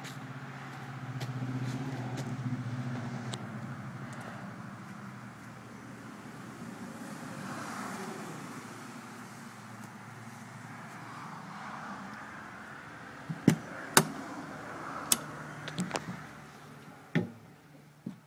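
A vehicle engine idling with a steady low hum, loudest in the first few seconds. Near the end come several sharp clicks and knocks of a vehicle door's handle and latch as the door is worked.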